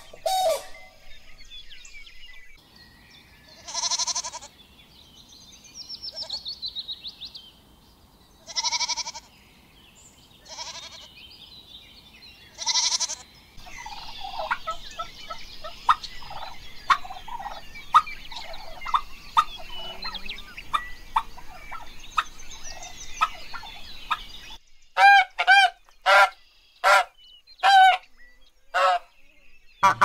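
Three bird sounds in turn. First, a few separate loud calls from grey crowned cranes. Then a flock of domestic turkeys gobbling and clucking in a long run of quick calls. Then domestic geese honking, about six loud honks.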